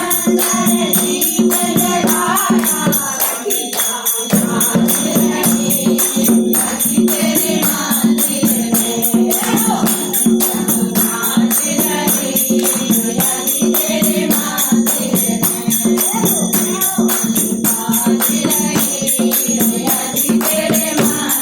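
Conch shell (shankh) blown in a long steady note, breaking off for about a second around three seconds in and then sounding again, over group devotional singing and rapid, steady clanging of temple bells or cymbals during temple worship.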